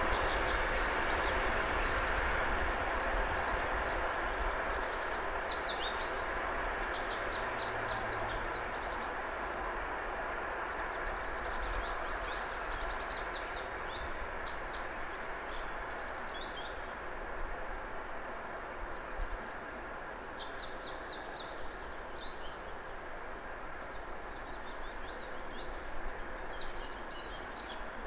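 A 2TE116 twin-section diesel locomotive running light, its engine and wheel noise a steady rumble that fades gradually as it moves away. Small birds chirp repeatedly over it.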